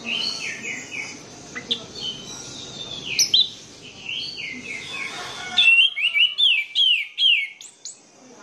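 Orange-headed thrush singing: a steady stream of quick, varied whistled phrases, then about six seconds in a louder run of sharp, downslurred notes.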